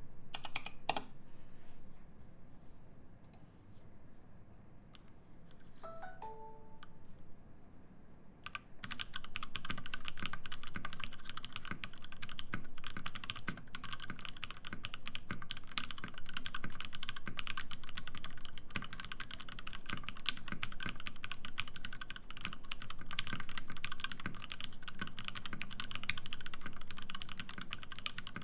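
Satisfaction75 R2 mechanical keyboard with lubed Lavender switches, FR4 plate and GMK keycaps, typed on fast and continuously in a typing test: a dense stream of key strokes that starts about a third of the way in. Before it come only a few isolated clicks and a brief pitched blip.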